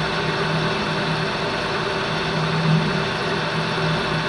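Grizzly metal lathe running steadily with a constant low hum while a boring bar is hand-fed into the bore of the spinning part.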